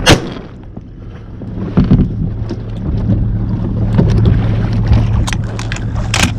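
Boat motor running steadily with a low hum, growing louder over the first few seconds, with wind on the microphone. A loud sharp crack right at the start, and a few sharper clicks near the end.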